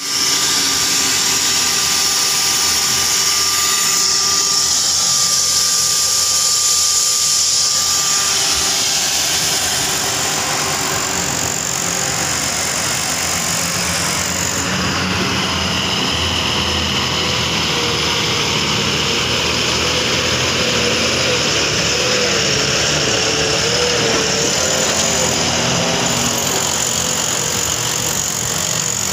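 Heavy construction machinery running steadily: a continuous engine drone with a strong high hiss over it, its tone shifting slightly a couple of times.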